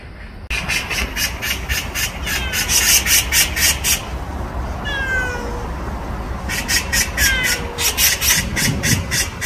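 A cat meowing three times in short falling calls, over a rapid rhythmic high-pitched chirring that pulses about four times a second. The chirring starts suddenly about half a second in and drops out for a couple of seconds in the middle.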